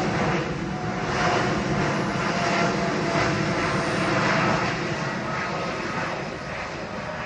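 Jet engines of a four-engine Boeing 747 freighter climbing out overhead after takeoff: a loud, steady, rumbling roar that fades somewhat over the last couple of seconds.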